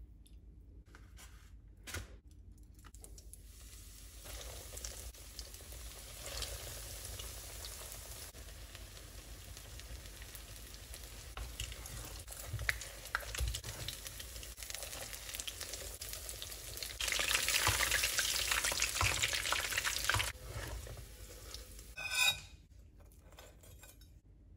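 Breaded potato-and-cheese patties shallow-frying in hot oil in a pan: a steady sizzle that grows louder for a few seconds towards the end, then stops. A brief knock follows.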